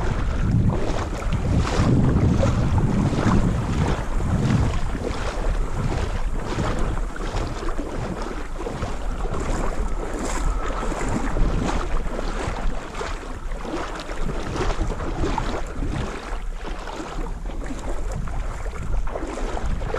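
Wind buffeting the microphone over choppy, lapping water, gusting hardest in the first few seconds, with small splashes throughout.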